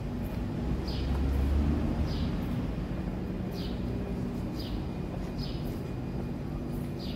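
Street ambience: a low rumble of vehicle traffic that swells briefly about a second in, with a small bird chirping over it about once a second, each chirp a short falling note.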